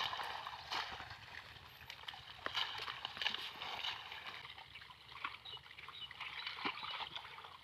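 Water splashing and trickling close by, with irregular small splashes and clicks.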